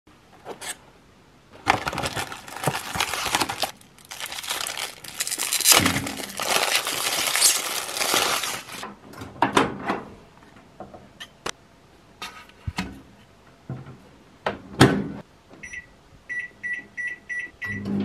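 Cardboard and packaging rustling and crinkling for several seconds as a popcorn pack is handled, then a few sharp clicks and knocks from a Samsung MG23J5133AK microwave oven's door. Near the end comes a run of about six short high beeps from its touch control panel as the cooking time is set.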